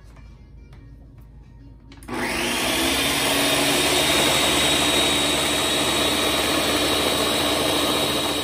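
Ninja countertop blender motor starting up about two seconds in, its whine rising to speed within a second, then running steadily at high speed as it blends a thick avocado crema thinned with milk.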